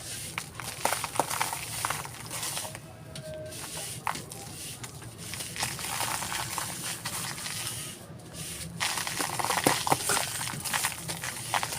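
A dry, crumbly texture being crushed and crumbled by hand, in dense crackles and crunches that grow busier in the second half.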